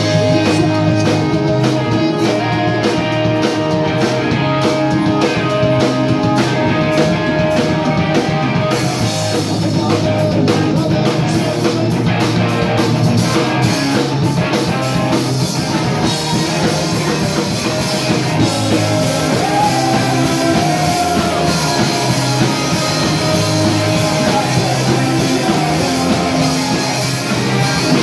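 Live punk rock band playing loudly: electric guitars, bass guitar and drum kit. The cymbals come in much fuller about nine seconds in, and a voice sings over the band in the second half.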